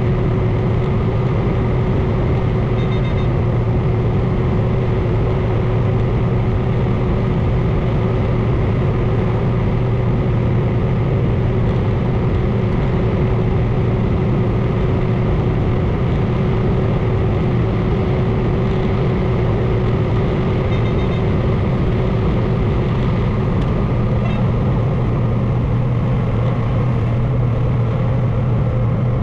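Combine harvester running steadily while picking corn: an even engine and machine drone with a strong low hum and a steady higher tone over it.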